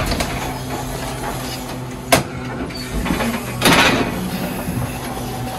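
Forklift at work setting down a pallet: a steady motor hum, a sharp knock about two seconds in, and a longer clatter a little later.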